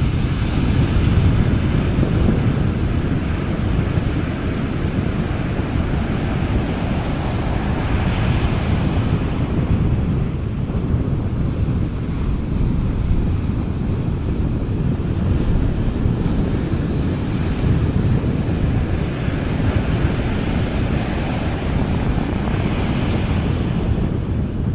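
Gentle sea waves washing onto a beach in a steady wash, swelling softly about eight seconds in and again near the end, with wind rumbling on the microphone.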